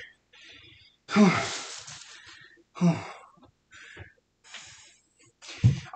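A man sighing out loud, breathless after heavy leg exercise: one long, loud exhale about a second in that falls in pitch and fades, a shorter one near three seconds, then a few soft breaths.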